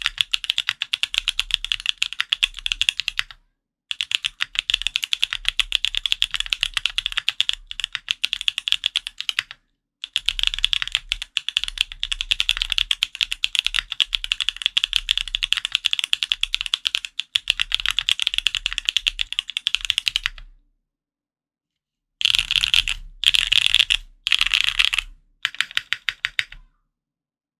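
Fast typing on a QK Neo65 mechanical keyboard with lubed TTC Holy Panda tactile switches on a carbon fiber plate and Linworks Retro keycaps: rapid continuous keystrokes broken by two brief pauses, stopping about three quarters of the way through. After a short gap come a few brief bursts of rapid keystrokes, then the typing stops shortly before the end.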